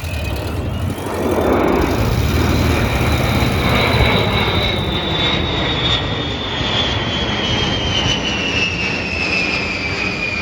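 Aircraft engines passing by at an air display: a steady loud engine noise with a high whine that climbs in pitch about a second in, then slowly drops as it goes past.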